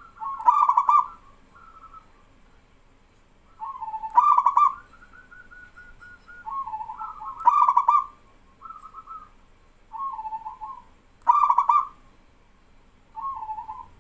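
Zebra doves (perkutut) cooing. A loud rolling coo comes about every three and a half seconds, four times, with softer coos in the gaps between.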